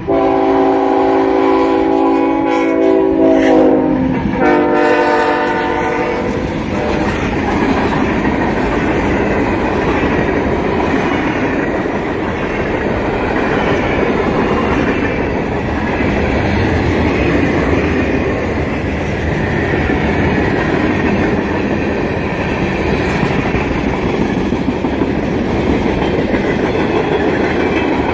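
Freight locomotive's air horn sounds a long chord, breaks off about 4 s in, and gives a second, shorter blast that ends about 6.5 s in. The train's cars then roll steadily past close by.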